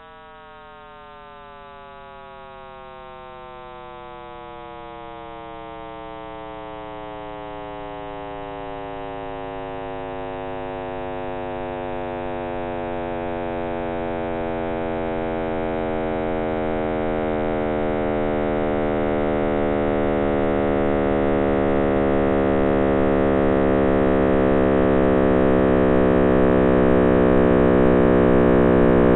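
Sonification of the Big Bang's sound waves, raised into the range of hearing: a dense drone of many tones sliding slowly downward in pitch while it swells steadily louder.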